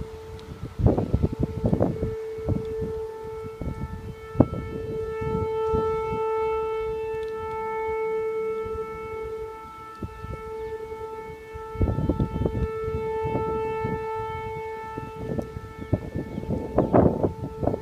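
An unexplained siren-like sound: a held, nearly steady droning tone with several overtones. It swells and fades, breaks off about ten seconds in, then comes back. Rough rumbling noise runs beneath it, loudest near the start and the end.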